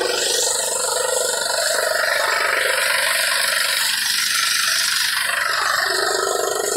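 Chaff cutter running under load, its blades chopping dry straw stalks fed into it and its blower throwing the chopped chaff out of the spout: a steady, dense rush of noise with no break.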